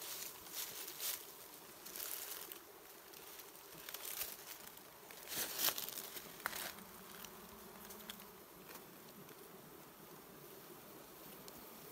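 Swarm of honeybees buzzing in a faint, steady hum, with a handful of short dry-leaf rustles in the first half.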